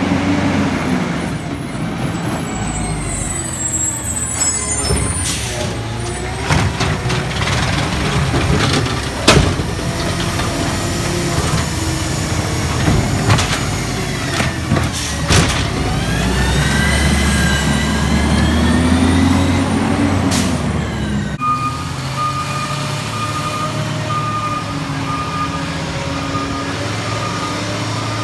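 Garbage truck at work: its diesel engine running and revving up and down, with several sharp bangs and knocks. Then comes a sudden change to a steadier engine with a repeating beep.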